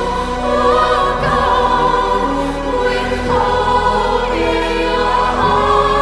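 Choral music: a choir singing long held notes over a musical accompaniment.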